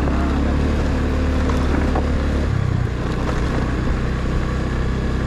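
Vehicle engine running steadily while travelling, with road and wind noise. The engine note shifts about two and a half seconds in.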